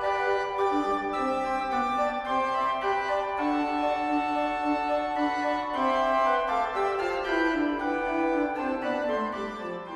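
Instrumental organ music: slow held chords and a melody line, fading out near the end.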